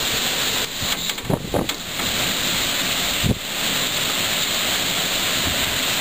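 Wind and heavy rain of a squall-line thunderstorm: a steady rushing hiss, with a few short gusts thumping the microphone in the first few seconds, the last about three seconds in.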